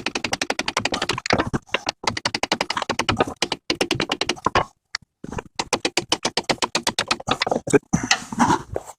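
A hammer tapping a seal driver to drive a new transmission output shaft (inner CV axle) seal into the transmission case. The taps come in quick runs of about ten a second, with a few brief pauses between runs.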